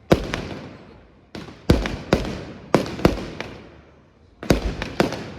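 Fireworks display: about a dozen sharp bangs, some in quick pairs and clusters, each trailing off in a fading echo.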